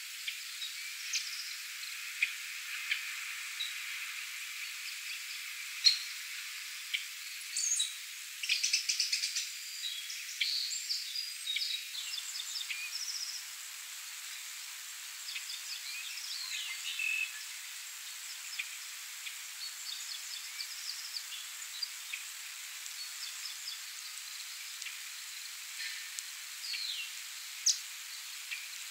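Several songbirds chirping and trilling in short, scattered calls, busiest in the first half, over a steady soft hiss of light spring rain falling on a pond.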